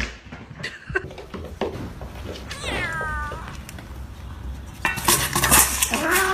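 Domestic cats meowing: one long falling meow about halfway, then a loud clatter near the end as a steel food bowl tips on a tiled floor, with a cat's yowl over it.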